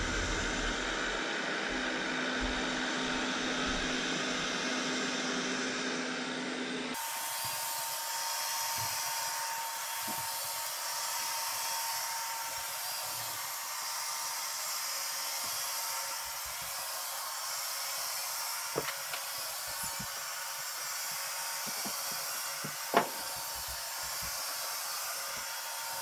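Robot vacuum running steadily as it drives across a table top. About a quarter of the way in its sound changes abruptly, the low hum dropping away, and near the end there is one sharp click.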